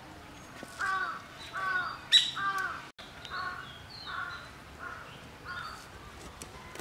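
A crow cawing over and over, about eight caws in a row, the first three loudest and the rest fading. A single sharp click sounds about two seconds in.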